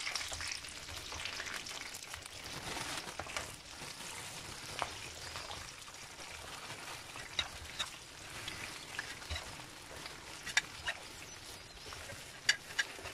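Potato fries deep-frying in hot oil in a wok: a steady sizzle, loudest at first and then dying down, with a scatter of sharp clicks and pops in the second half, thickest near the end.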